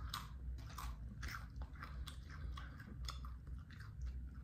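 A person biting into and chewing a crisp tortilla chip: a run of irregular crunches, about four a second.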